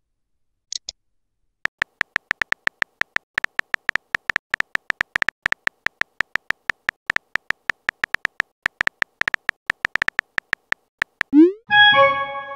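Phone on-screen keyboard typing sound effect: a quick, even run of tapping clicks, each with a short beep, for about nine seconds. Near the end there is a rising swoop and a short chime, the message-sent sound.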